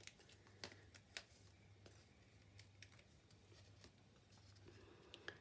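Near silence with a few faint clicks and rustles over a faint steady hum: hands peeling the backing papers off foam adhesive dimensionals and handling a card topper.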